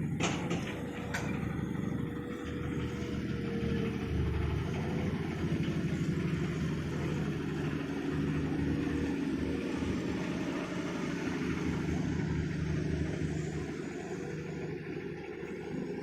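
Amphibious excavator's engine running steadily, with a couple of sharp clanks about a second in.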